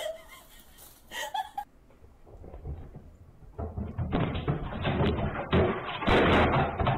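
Rapid thumping and clattering of a pet leaping around furniture, growing louder over the last few seconds, heard through a home camera's dull, low-quality microphone.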